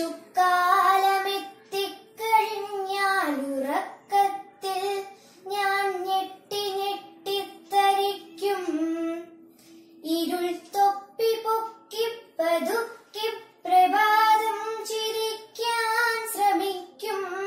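A young girl singing Malayalam poetry unaccompanied, in the melodic recitation style of kavithalapanam: held notes that bend up and down, with short breaths between lines.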